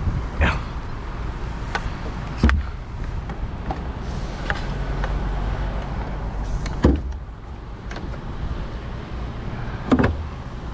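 Utility truck engine running steadily under the raised work platform, with four sharp knocks spaced a few seconds apart.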